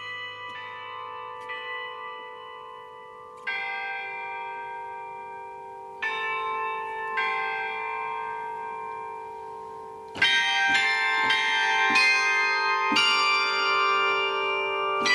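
Carillon bells played from a baton-and-pedal keyboard. A few slow strikes ring on and die away, with a low bell humming underneath. From about ten seconds in, a louder, quicker run of many bells sounds together.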